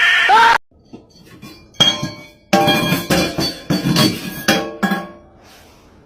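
A wavering high cry cuts off abruptly just after the start. Then comes a single knock, followed by a run of clattering, clinking knocks with short ringing tones that stops about five seconds in.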